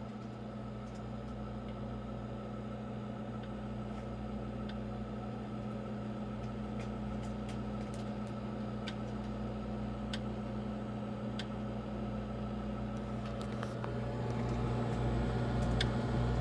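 Brio 740i ice maker running with a steady hum and faint, irregular clicks about every second or two; the hum grows louder near the end. The owner takes this clicking for the same sound the two previous units made before they broke down.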